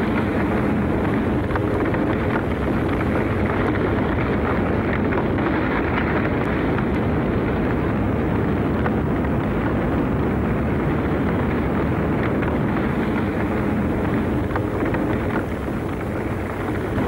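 A basaltic lava fire fountain erupting: a loud, steady rushing noise with an even level and no separate blasts.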